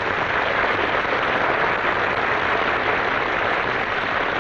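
A large studio audience applauding, a steady even clapping.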